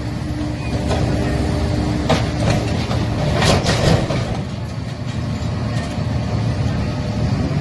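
Excavator's diesel engine running steadily, with a few sharp knocks about two seconds in and a clatter of material a little past the middle as the grapple attachment handles debris.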